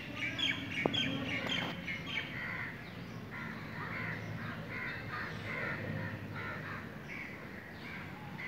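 Crows cawing, many short calls overlapping one another.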